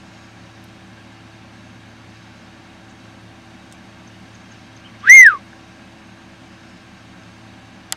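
A single short, loud whistle-like call about five seconds in, rising then falling in pitch, over a faint steady low hum.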